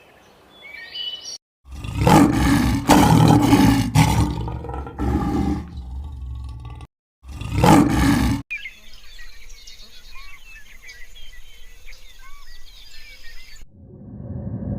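A large animal roaring loudly in a long, drawn-out call, then again in a shorter call after a brief cut. This is followed by birds chirping.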